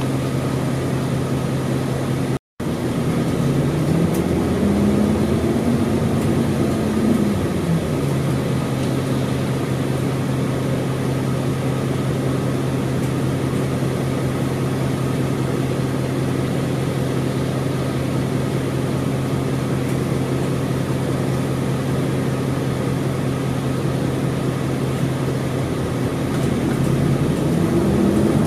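Isuzu Erga city bus's V8 diesel engine running, heard from on board. The engine note rises and falls back a few seconds in, holds a steady idle, then climbs again near the end.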